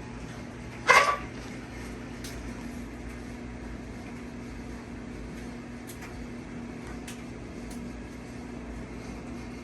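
SMC Royal Flush 42-inch ceiling fan running with a steady motor hum. A short, loud clatter comes about a second in, and a few faint ticks follow later.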